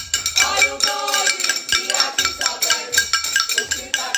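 Spoons clinking and banging against glass bowls and ceramic plates, many struck at once in a fast, rough rhythm, with the glass ringing after each strike.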